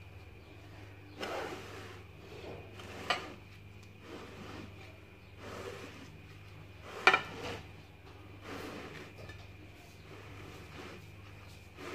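Soft rubbing and handling noises over a low steady hum, with two sharp knocks about three and seven seconds in, the second louder.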